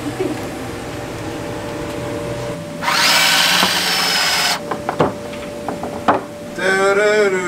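Cordless drill running hard for about a second and a half as it drives into wooden boards, followed by a few sharp knocks. A voice comes in near the end.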